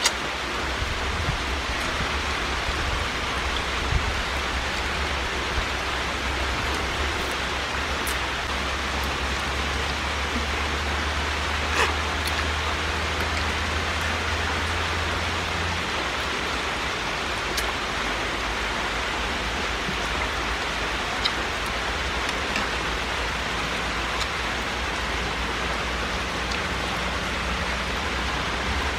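A steady, even hiss, with a low hum underneath and a few faint clicks scattered through it.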